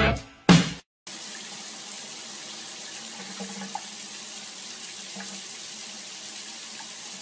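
Water running steadily from a tap into a bathtub, an even hiss that starts about a second in.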